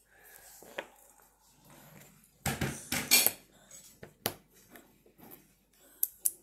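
Small plastic building bricks clicking and clattering as they are handled and pressed together. A cluster of louder clacks comes about halfway through, and two sharp clicks come near the end.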